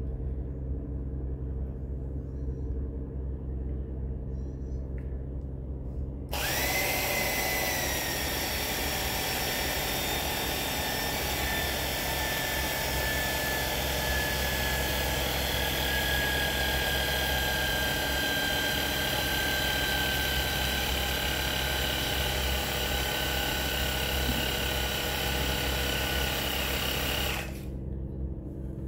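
Electric hydraulic crimping pump working a crimp. After a steady low hum, the pump motor starts about six seconds in with a loud whine that slowly drops in pitch as it runs. It cuts off abruptly near the end, the pump's automatic shut-off on reaching 700 bar.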